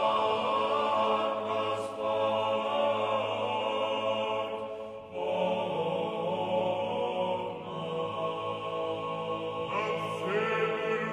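A choir chanting in long held notes over a steady low drone. The singing breaks off briefly about five seconds in and starts a new phrase near the end.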